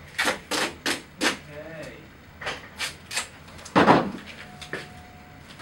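Duct tape being pulled off the roll in a string of short, sharp rips, four in quick succession and then three more, followed by a louder, longer rip as a strip is torn off about four seconds in.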